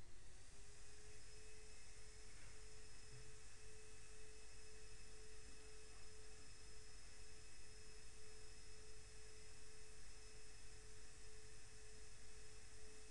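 A steady pure tone starts about half a second in and holds one pitch, with fainter higher tones above it, over a background of hiss and low hum.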